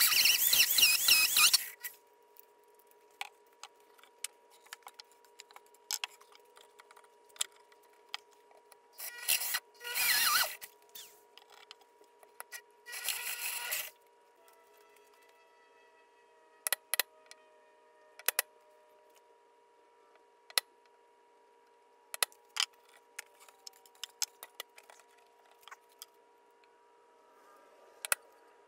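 Power drill driving a bimetal hole saw through a walnut slab, in three loud bursts: one at the start, another around nine to ten seconds and a shorter one around thirteen seconds. After that come scattered sharp clicks and taps, with a faint steady hum underneath.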